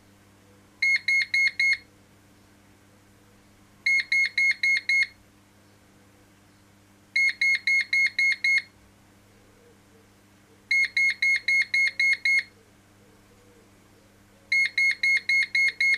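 Electronic beeper of a Daystate Air Wolf MCT air rifle sounding groups of short, high-pitched beeps about every three seconds, each group one beep longer than the one before. The rifle is counting up through its numbered setting stages toward stage eight, the low pressure warning setting.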